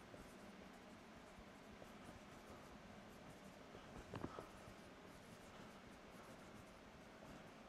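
Faint marker writing on a whiteboard, the pen tip squeaking and tapping against the board, with a couple of brief taps about four seconds in, over quiet room hiss.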